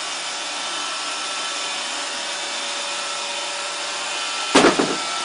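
Roomba robot vacuum running steadily with a constant motor hum as it drives along a pool table rail. A short loud knock comes near the end.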